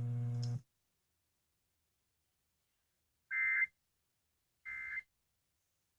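Emergency Alert System end-of-message data bursts from a radio: short, high electronic buzzes about 1.3 seconds apart, two in the second half and a third starting at the very end. They are the digital 'NNNN' code that closes the alert. A low steady hum cuts off just after the start.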